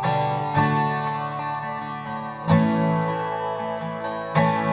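Martin GPC Special Koa X Series acoustic guitar, with its high-pressure laminate (HPL) body, being strummed: a few chords, each left to ring.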